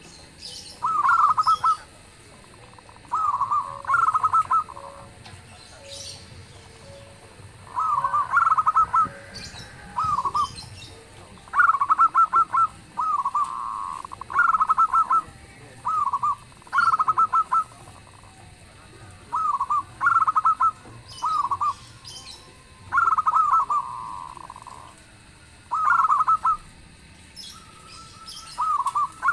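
Zebra doves cooing: short, rapid, stuttering coo phrases repeated every second or two, with more than one bird calling back and forth.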